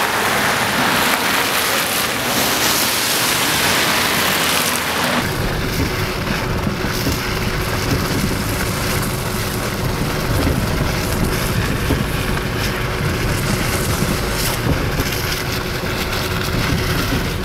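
An even hiss for about the first five seconds. Then the low rumble of a vehicle driving along a road, with a faint steady hum.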